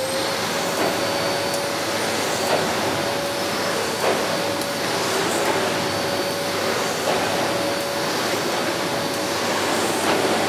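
Goblin GCV303B bagless cylinder vacuum cleaner running with a steady motor whine over a rushing hiss of air, its carpet and floor nozzle pushed back and forth over carpet, with a few faint knocks.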